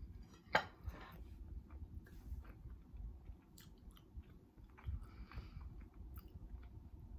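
Close-miked chewing of a mouthful of food with the mouth closed, with small wet mouth clicks. About half a second in, a sharp knock as tableware is set down on the table.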